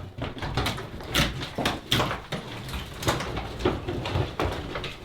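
Irregular knocks and clatters of hand building work, a sharp hit every half second to a second or so.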